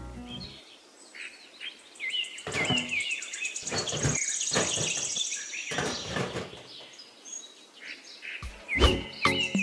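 Small birds chirping in short rising calls, with a fast high trill for a couple of seconds starting about three seconds in. A few dull knocks are scattered through it.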